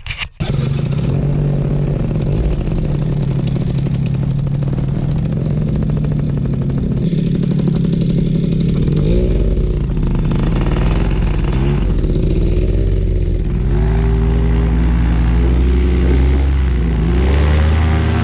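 Paramotor engine and propeller running at high throttle, a loud steady drone. About halfway through, music comes in over it.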